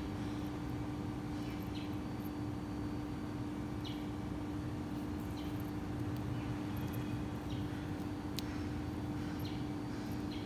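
Steady background hum with one constant mid-low tone, with faint short high chirps every couple of seconds.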